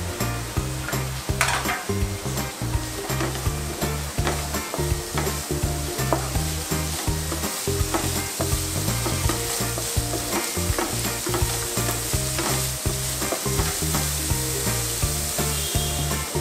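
Chopped cabbage, carrot and capsicum sizzling in hot oil in a pan as a wooden spatula stirs and tosses them, with frequent clicks and scrapes of the spatula against the pan over a steady sizzle.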